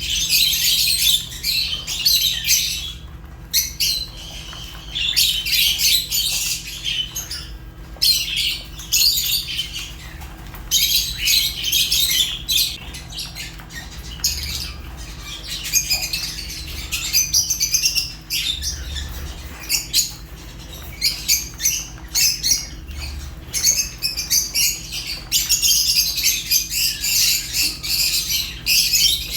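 A flock of lovebirds chirping and squawking: shrill, rapid, chattering calls in dense bursts, with brief lulls between them.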